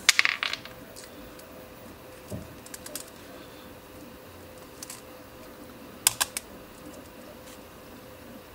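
Small hard plastic clicks and taps of 3D-printed gear parts being handled and fitted together by hand: a quick cluster of clicks at the start, then scattered single clicks and a close pair a little past the middle. A faint steady hum sits underneath.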